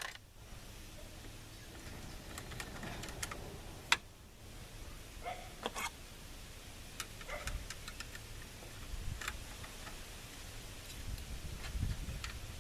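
Scattered light clicks and knocks of hand tools and plastic dash parts being handled, with a sharp click at the very start and another about four seconds in.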